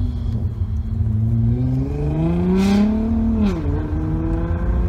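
Nissan GT-R R35's twin-turbo V6 with an aftermarket exhaust, heard from inside a car following it, revving up as it accelerates and then dropping sharply in pitch about three and a half seconds in as it shifts or lifts off, with two short hisses near the top of the rev.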